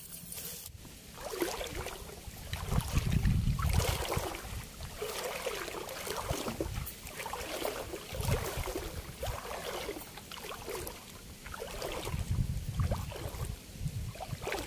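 Footsteps wading through shallow river water, with a splash and slosh at each stride.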